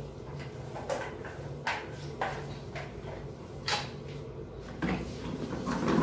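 Scrubbing at a toilet bowl with a long-handled brush: brief scrapes and knocks at irregular intervals, roughly one a second, over a steady low hum. A louder rush of noise comes in near the end.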